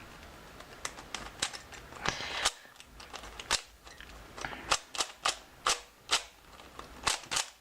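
Cyclone Boys 3x3x3 speed cube being turned by hand: an irregular run of sharp plastic clicks as its layers turn and snap into place, with a short rasping run of turns about two seconds in. Its owner finds it a little too loose.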